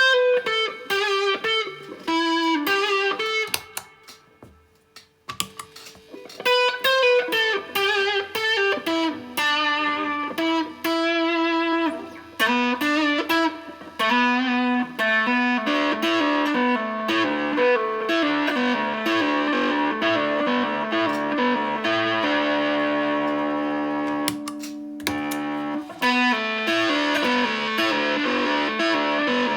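Electric guitar played through a silicon-transistor Astrotone fuzz pedal, built on the original circuit: picked single-note lines with a short pause about five seconds in, then thicker sustained fuzzy notes and chords in the second half.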